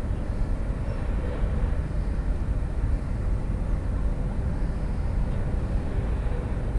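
Steady low rumbling outdoor background noise with no distinct event.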